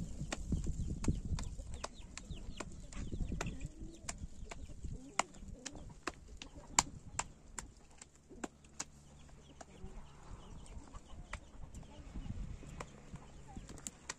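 Chickens clucking softly, with many sharp, irregular clicks throughout.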